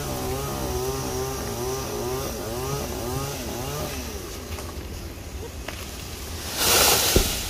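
Chainsaw cutting through a sao tree limb, its engine pitch rising and falling under load before dying away about four seconds in. Near the end comes a loud, short rushing crash of leaves and branches, the cut limb falling.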